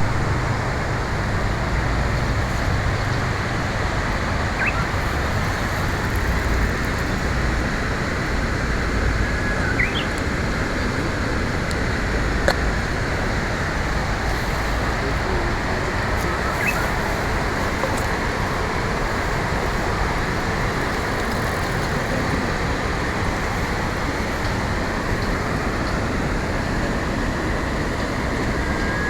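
Japanese bush warbler (uguisu) giving a few faint, short rising whistled notes several seconds apart: a halting, not-yet-polished early-spring attempt at its song. The bird sits over a loud, steady rushing background noise, which is the loudest thing heard.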